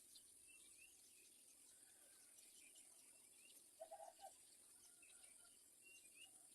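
Faint birdsong: scattered short, high chirps from small birds over a steady high-pitched hiss, with a quick run of four short, lower notes about four seconds in, the loudest thing heard.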